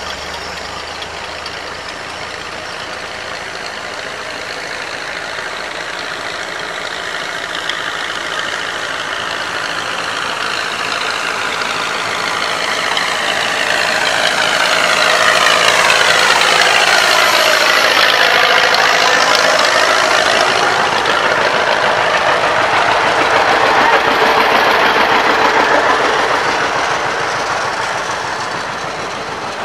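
A line of antique farm tractors driving past with their engines running, growing louder as they approach, loudest through the middle, and fading near the end.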